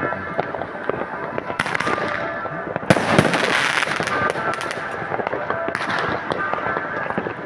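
Fireworks and firecrackers going off in a dense, continuous string of bangs and crackles, with a louder burst about three seconds in.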